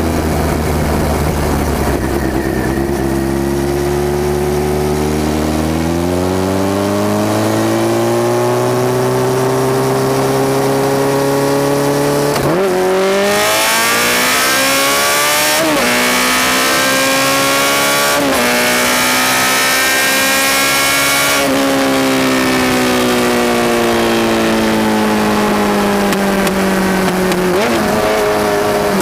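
Honda CBR1100XX Super Blackbird's inline-four engine, loud through a Takkoni exhaust with straight pipes in the mufflers, pulling hard through the gears. The revs climb steadily for about ten seconds, then break for quick upshifts three times about halfway through. After that they fall slowly off the throttle, with a sharp rev rise near the end as it is shifted down.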